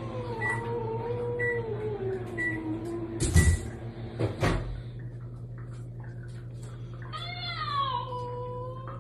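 Domestic cat giving a long, drawn-out meow that slowly falls in pitch over about three seconds, then, after two loud knocks about a second apart, a second meow near the end that drops and then holds steady.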